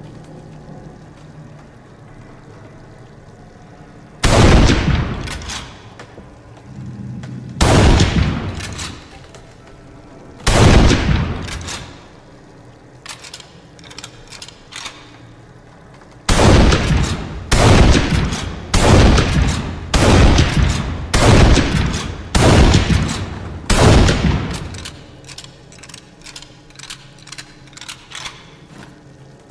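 Winchester Model 1887 lever-action shotgun firing. Three single shots come a few seconds apart, then a run of seven about one a second, each with a ringing tail. Small clicks sound in the gaps between shots.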